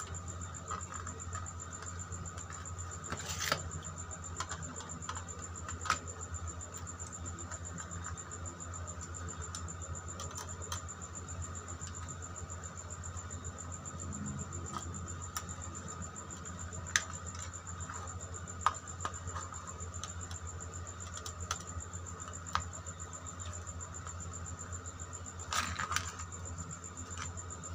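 Scattered light clicks and taps of a screwdriver working the terminal screws and wires on a plastic switch-and-socket board, at irregular intervals over a steady background hum.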